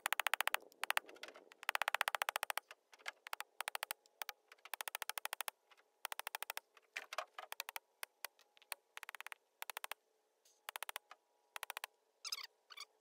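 A hammer striking the top of a metal electric-fence ground rod to drive it into the ground, heard as quick clusters of sharp, evenly spaced ticks with short gaps between them.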